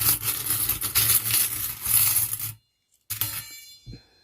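Small metal charms clinking and jingling together as a hand rummages through them to pick one. The jingling cuts off suddenly, and a moment later one brief clink rings out high.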